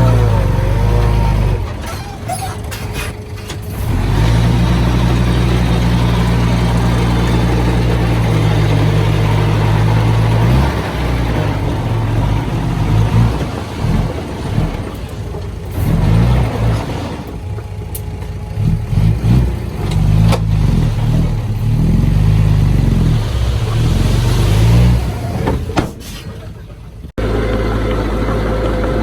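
Heavy diesel earthmoving machinery working, the engine note rising and falling under load. Near the end the sound breaks off abruptly and a steadier engine run takes over.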